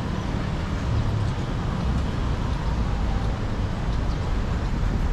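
Steady city street ambience, mostly a low rumble of traffic.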